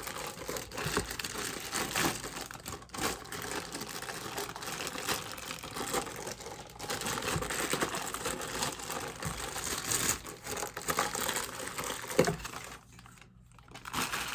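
Plastic packaging crinkling and tearing as a new set of sport-stacking cups is unwrapped, in a continuous run of crackles that stops briefly near the end.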